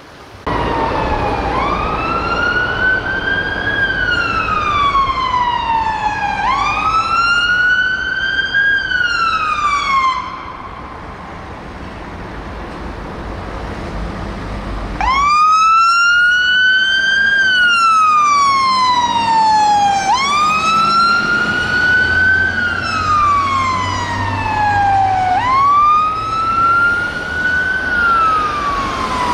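UK fire engine siren on wail. Each cycle rises quickly and then falls slowly, repeating about every five seconds. It is quieter for a few seconds in the middle and louder in the second half, with a diesel engine rumbling under it.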